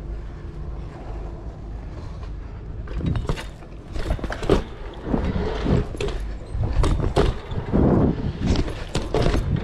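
BMX bike rolling on a concrete skatepark, its tyres giving a steady low rumble. From about three seconds in it turns rougher, with repeated knocks and rattles as the bike rides over the transitions.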